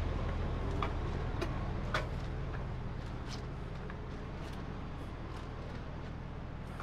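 Steady low hum of an idling diesel truck engine that slowly gets quieter, with light irregular ticks and scuffs of footsteps on pavement.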